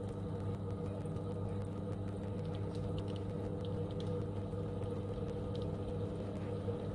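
Heinzelmann CHEF-X blender-cooker motor running steadily, its blade spinning through liquid in the stainless steel jug: an even low hum, with a few faint high ticks.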